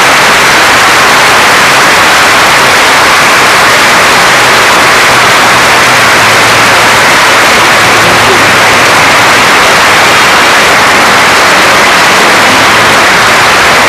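Loud, steady static-like noise, an even hiss with no distinct events in it.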